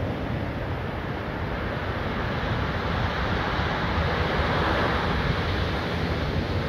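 Steady rushing noise with wind buffeting the microphone in a gusty low rumble.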